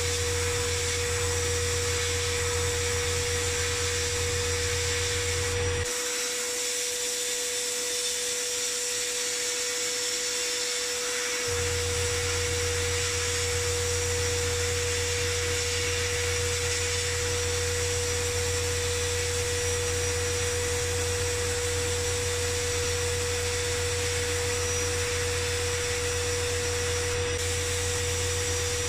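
Media blasting cabinet running: a steady hiss as the blast gun strips paint off a steel panel, over a steady low hum and a high whine. The low hum drops out for about five seconds, starting about six seconds in.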